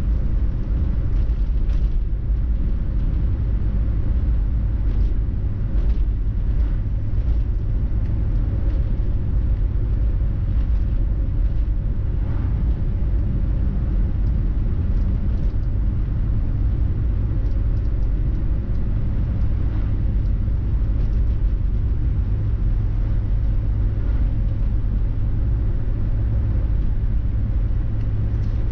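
A car driving along, with steady low engine and road rumble.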